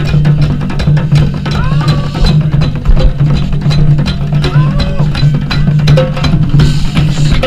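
Live percussion ensemble of several drummers playing a dense, steady rhythm of many overlapping drum hits.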